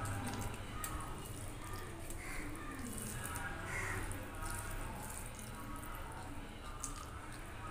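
Eating rice and curry by hand: scattered sharp clicks of chewing and lip smacks, with fingers mixing rice on a steel plate, over a low steady hum.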